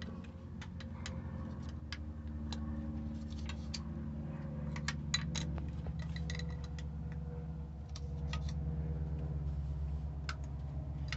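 Wrench clicking and tapping against metal while a glow plug is worked loose on a Westerbeke 12-D diesel engine: scattered light metallic clicks over a steady low hum.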